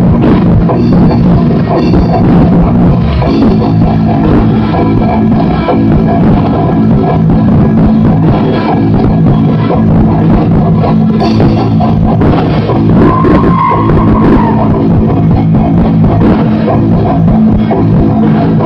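Djent band playing live: heavy distorted guitars over a drum kit, recorded very loud, muddy and distorted.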